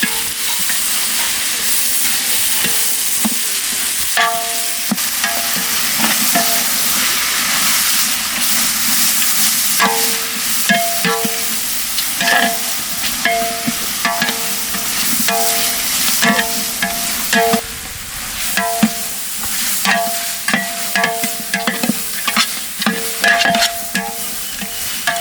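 Rabbit meat and masala sizzling in hot oil in a large metal pot while being stirred. A metal ladle repeatedly strikes and scrapes the pot, making short ringing clangs from about four seconds in, more often from about ten seconds on.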